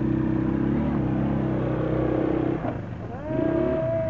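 Quad bike engine running hard under load as it climbs a wooden ramp onto a van roof, then dropping off about two and a half seconds in. Near the end a long tone rises briefly and then slowly falls in pitch.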